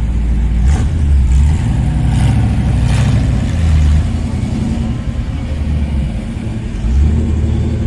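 Low, loud engine rumble from a vehicle running close by at walking pace, with a few sharp crackles in the first few seconds.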